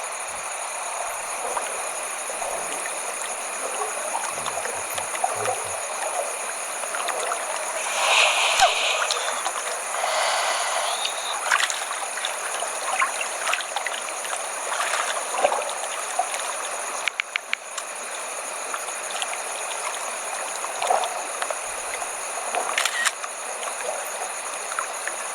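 Steady rush of running water with occasional splashes, swelling louder around the middle.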